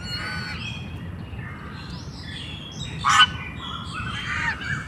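A flock of geese calling with short honks and chatter, one loud harsh honk about three seconds in.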